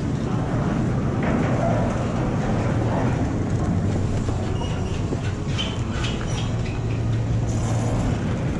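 Chairlift station machinery running: a steady mechanical rumble with a low hum, broken by occasional clicks and clatter as the chair passes through the station and under the bullwheel.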